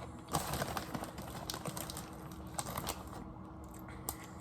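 Crunchy chips being chewed: a quick run of crisp crackles for about three seconds, then a single click near the end.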